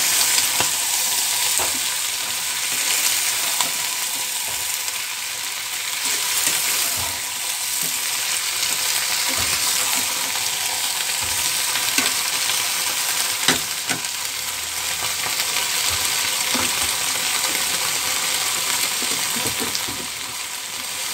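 Sliced flat beans sizzling steadily in mustard oil in a small karahi, stirred with a metal spatula that scrapes and clicks against the pan now and then.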